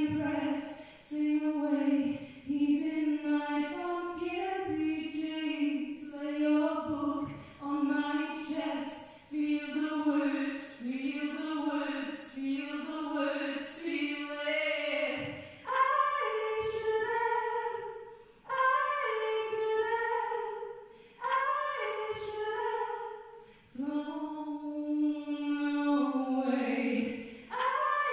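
A woman singing a slow melody into a microphone, holding long notes in phrases with short breaths between them; a little past halfway the melody climbs to a higher register, dropping back briefly near the end.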